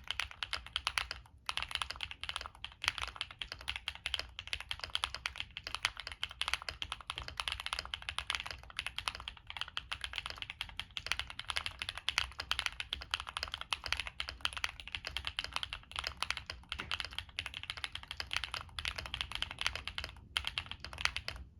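Continuous fast typing on a mechanical keyboard: a Monsgeek M1 with Epomaker Zebra switches, POM plate, tape mod and plate foam, and Cherry doubleshot keycaps. Rapid key clicks with a few brief pauses.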